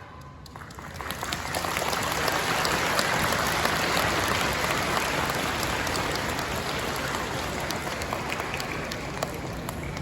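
Audience applauding, building over the first two seconds and slowly tapering off.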